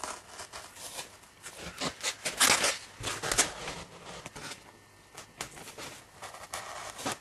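Craft knife blade scratching and crackling through a foam wing and its masking tape in short, irregular strokes, loudest about two and a half and three and a half seconds in.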